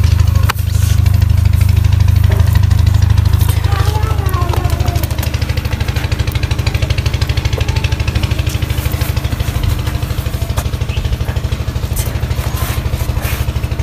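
Engine idling steadily: a loud low drone with a fast, even pulse.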